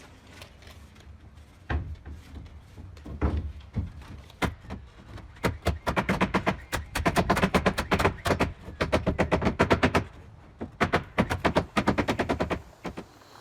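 Pneumatic nail gun firing fast into wood framing and sheathing: a few single shots, then long quick runs of about seven shots a second.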